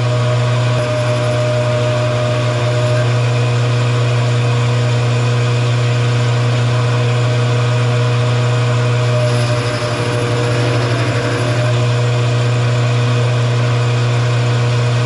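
Metal lathe running under power, turning down the diameter of a steel workpiece: a steady motor hum with steady higher tones from the spinning chuck and cut, stopping suddenly at the end.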